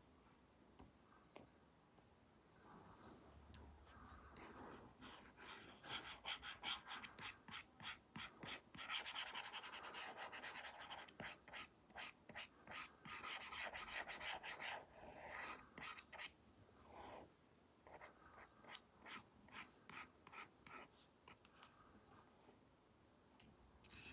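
Apple Pencil tip rubbing on an iPad's paper-like matte screen protector in quick repeated drawing strokes. The strokes come thick and almost without a break through the middle, with sparser single strokes before and after.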